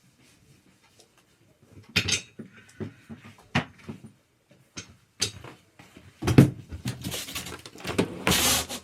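Clinks and knocks of gaming-chair parts being handled during assembly, a heavy thump about six seconds in, then rustling toward the end.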